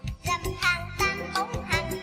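Children's-style song playing: a sung melody over a bass line and a regular beat.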